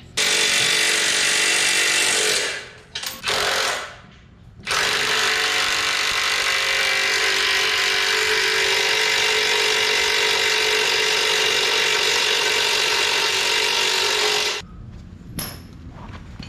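Milwaukee cordless impact wrench hammering on bolts at the cutter wheel of a Rayco RG50 stump grinder. It runs in three bursts: about three seconds, a brief blip, then a long run of about ten seconds that stops near the end.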